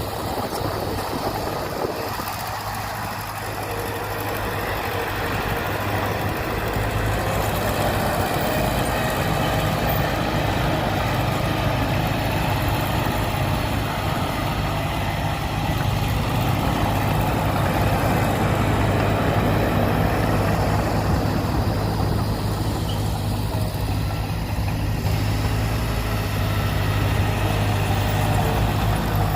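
Heavy diesel engine of earthmoving machinery running steadily with a low hum, growing louder over the first several seconds and then holding.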